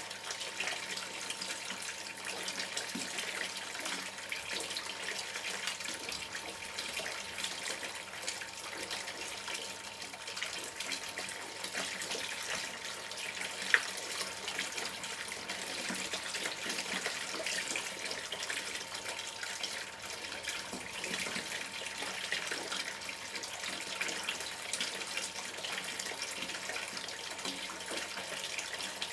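River water gurgling steadily over stones, with one sharp click about halfway through.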